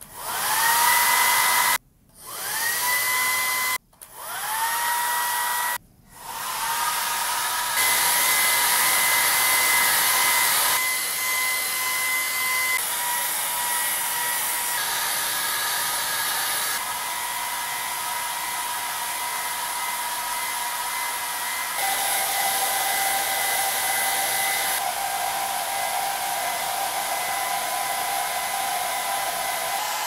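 SALONIA folding hair dryers (Glossy Care, Speedy Ion and Smooth Shine) being switched on one after another: three start-ups about two seconds apart, each spinning up with a rising whine into a steady rush of air. Then the dryers run in turn at full airflow, a steady rush with a motor whine whose pitch and loudness change several times as one dryer gives way to the next.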